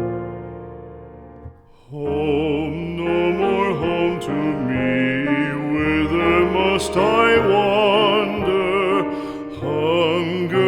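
Background music: a sustained piano chord fades out, then about two seconds in a singer with a strong vibrato begins a slow song over piano accompaniment.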